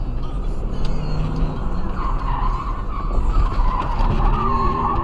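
A car's tyres squealing through a sharp turn, starting about two seconds in and wavering on, over steady engine and road rumble.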